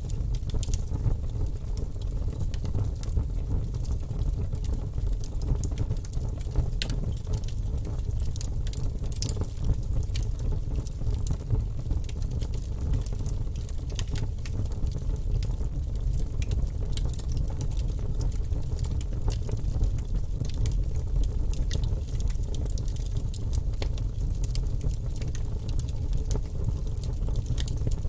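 Wood fire burning in a fireplace: a steady low rumble with frequent small, irregular crackles and pops.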